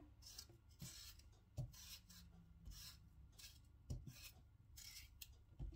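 Faint rubbing and scraping of hand work at a kitchen counter, with a few soft knocks.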